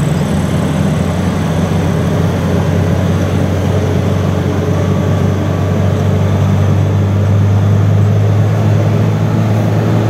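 Engine of an open-sided passenger truck heard from on board, running with a steady low drone amid wind and road noise. The drone swells about two-thirds of the way through.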